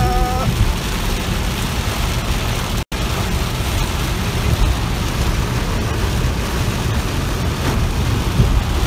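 Heavy rain pounding on a Lamborghini and its tyres hissing through standing water at highway speed, over a steady low engine drone, heard from inside the cabin. The sound cuts out for an instant about three seconds in.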